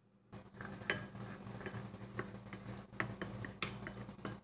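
Vegetables steaming and sizzling in a covered stainless-steel wok on a gas burner, with irregular small pops and ticks from under the lid, over a steady low hum.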